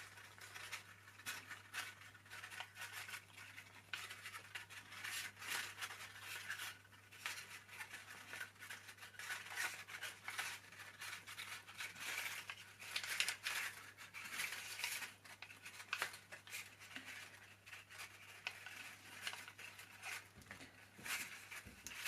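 Soft, irregular rustling and scratching of cord and paper cupcake cases being handled as a loop is knotted at the top of the cord.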